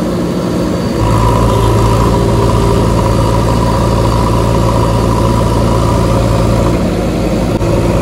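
JCB backhoe loader's diesel engine running close by. About a second in it picks up revs and runs harder as the backhoe pushes a stuck, loaded tractor trolley, then eases back near the end.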